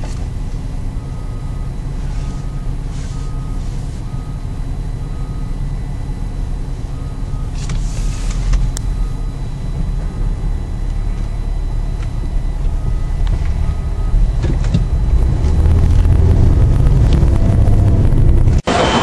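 Steady low rumble of a fire ladder truck's diesel engine and traffic, heard from inside a car, with a short beep repeating at an even pace. The rumble grows louder after about fourteen seconds and is cut off suddenly near the end.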